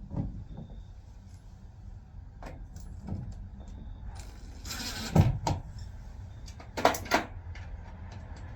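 Scattered knocks and clatter from shed-assembly work, with a short rasping burst about five seconds in and two or three sharp knocks about seven seconds in.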